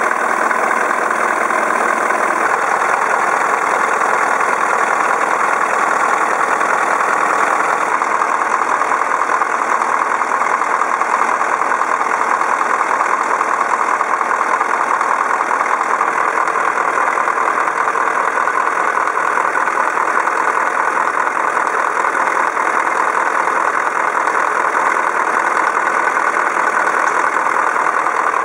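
Scania 144's V8 diesel engine idling steadily.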